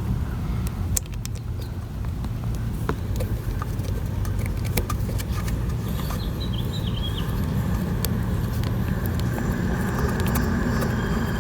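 Scattered light clicks and taps of an aerosol tire-sealer hose end being screwed onto a lawn tractor tire's valve stem, over a steady low rumble.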